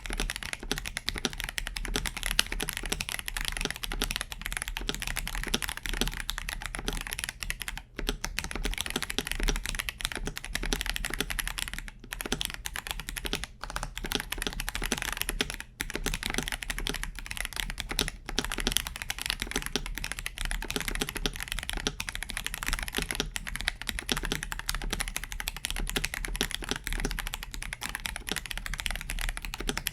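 Fast continuous typing on a KBD67 Lite R3 mechanical keyboard with stock Akko sponge tactile switches, whose Kailh-style latch housing gives a clacky sound, broken by brief pauses about 8, 12 and 16 seconds in.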